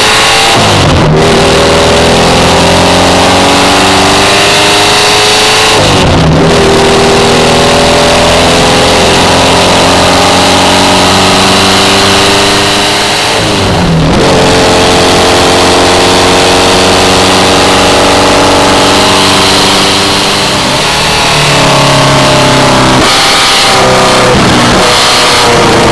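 Birkin S3's engine pulling hard under full throttle, its pitch climbing and dropping sharply at upshifts about a second in, around six seconds and around fourteen seconds. Near the end the engine note eases off, then breaks up several times in quick succession as the car slows for a corner.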